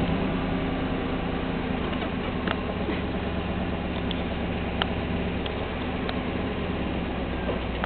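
Vehicle engine idling steadily, with a few faint scattered ticks.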